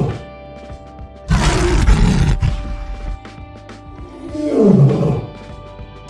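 Lion roaring: a loud, rough roar about a second in, then a call that falls in pitch about four seconds in, over background music.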